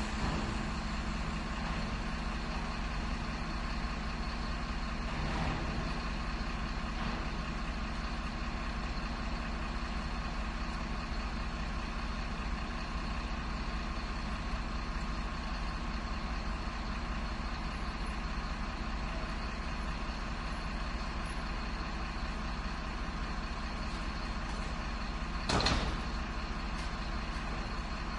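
Garbage truck engine running steadily at idle, with one short, sharp burst of noise near the end.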